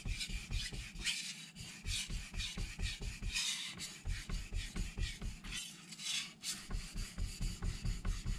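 Carbon steel (Aogami No. 2) knife blade scraping back and forth on a wet Miyagoshi vitrified whetstone. It is a quick, rhythmic run of rasping sharpening strokes, about three a second.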